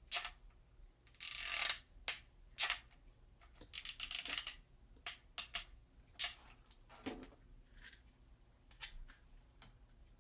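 Hand-work noises from hot-gluing a foam-board abutment piece: scattered clicks of the hot glue gun and short scrapes and rustles of the foam board being handled, with one duller knock about seven seconds in.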